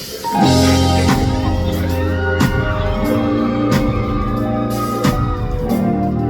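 Instrumental intro of a pop song starting about half a second in, with sustained chords, a heavy bass line and drum hits.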